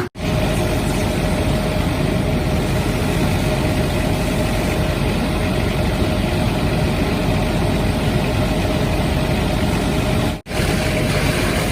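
Fire engine's engine running steadily under a constant rushing noise, with a steady hum throughout. The sound drops out for an instant near the end.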